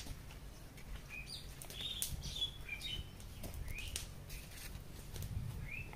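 Small birds chirping in the background: scattered short, high chirps, some rising, a dozen or so over a few seconds, with a few faint clicks and rustles.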